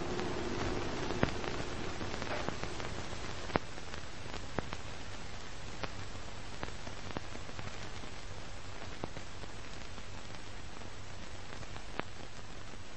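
Steady hiss with scattered sharp clicks and pops: the surface noise of an old archival film soundtrack.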